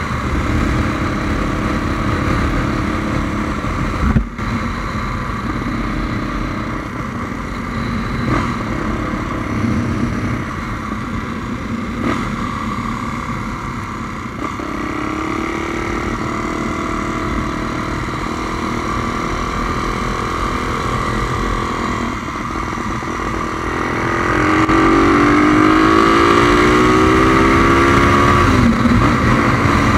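Single-cylinder four-stroke engine of a Honda Tornado motorcycle bored out to 350 cc, heard from the rider's seat while riding, with wind noise on the microphone. A single knock comes about four seconds in. Near the end the engine gets louder and its pitch climbs as the bike accelerates, then drops briefly.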